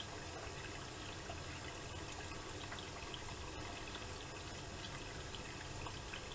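Miele Softtronic W3923 washing machine taking in water early in its wash cycle: a steady rush of running water over a low hum, with small splashing ticks.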